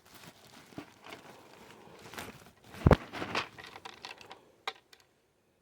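Rustling and crinkling of a sack of chicken feed being handled, with scattered clicks and one dull thump about three seconds in.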